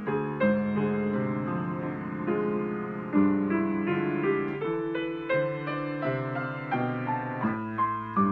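Grand piano played solo: a gentle piece of sustained chords and melody notes, with a line of single notes climbing upward in pitch near the end.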